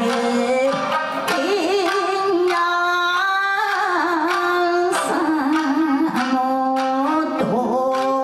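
A woman singing in a wavering, ornamented style to a shamisen ensemble's sharp, regular plucked strokes.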